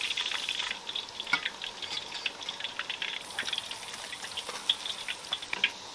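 Hot oil sizzling with many small, irregular crackles as starch-coated fish deep-fries in a wok.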